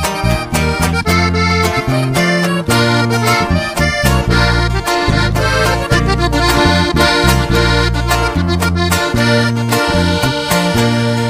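Instrumental break of a sierreño song: a button accordion plays the melody over a steady strummed rhythm and a stepping bass line.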